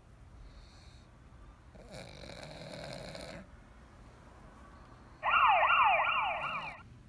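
A pug's noisy, wheezy breath for about a second and a half. Then, loudest, a siren-like warbling tone for about a second and a half, sweeping rapidly up and down about four times a second.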